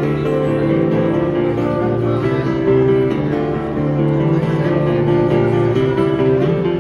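A street busker playing an acoustic guitar: a continuous run of chords and notes.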